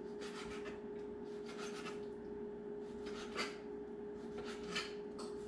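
A kitchen knife sawing through raw pork onto a plastic cutting board, in about four separate strokes with short pauses between them.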